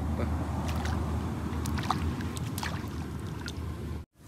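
Lake water sloshing and splashing around a person wading waist-deep, with short scattered splashes over a steady low rumble. The sound cuts off abruptly near the end.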